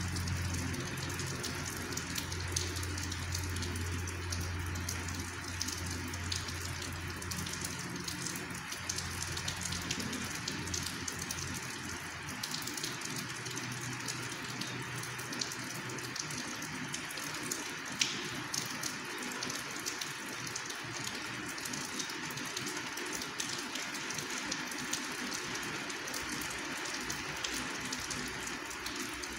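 Steady rain falling, an even patter. A low hum runs underneath for the first half and fades out. A single sharp tick comes about eighteen seconds in.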